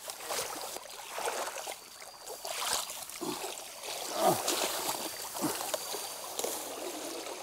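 Long-handled hand net swept through shallow stream water and bankside grass, giving a run of irregular splashes and swishes over the stream's running water.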